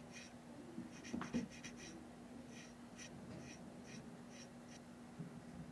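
Faint scratching strokes of a micro brush rubbing light orange chalk pastel along the ribs of a model boxcar, coming in quick runs of several strokes with short pauses between. A steady low hum sits underneath.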